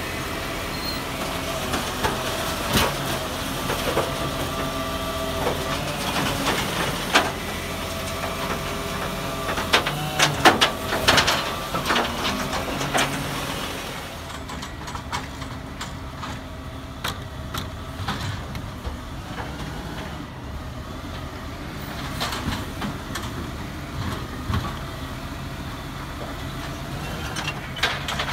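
Side-loader recycling truck working at the kerb: engine running with a changing mechanical whine from the bin-lifting arm, and a cluster of loud bangs and clanks about ten to twelve seconds in as a wheelie bin is tipped. After about fourteen seconds the truck sounds quieter and muffled.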